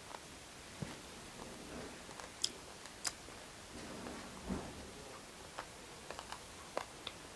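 Eating by hand: scattered sharp smacks and clicks of open-mouthed chewing, with fingers mixing rice on a steel plate.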